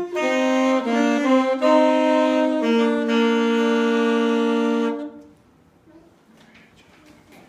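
A solo wind instrument plays the closing phrase of a recital piece, one melody line of held notes. It ends on a long final note that stops about five seconds in, leaving a quiet room.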